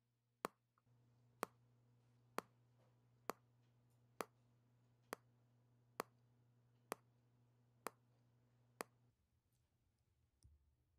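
Wall clock ticking about once a second: ten sharp ticks over a faint steady hum, both stopping about nine seconds in.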